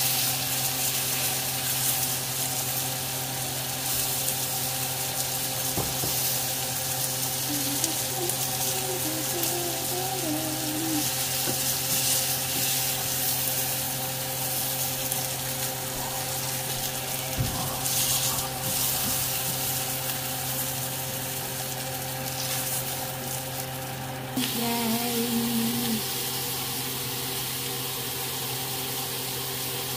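New York strip steaks sizzling steadily in a hot cast iron grill pan, over a steady low hum. The sizzle cuts off suddenly about 24 seconds in, leaving the hum.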